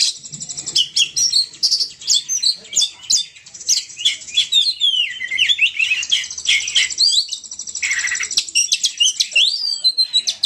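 Bird-lure recording of burung poci calls: a dense, unbroken stream of high chirps, quick up-and-down whistled notes and rapid twittering.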